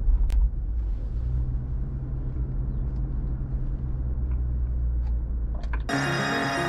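Steady low engine and road rumble inside a moving car, with a single sharp click just after the start. Background music comes in suddenly near the end.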